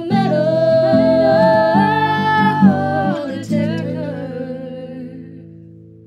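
Homemade theme song: several voices singing a long held final note over strummed acoustic guitar. The singing stops about halfway through, and the last guitar chord rings on and fades out.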